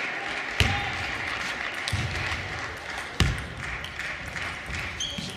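Table tennis rally: sharp clicks of the celluloid ball struck by the bats and bouncing on the table, several of them about a second apart, the loudest about three seconds in. Low thuds of the players' feet planting on the court floor go with the strokes, over a steady background of hall noise.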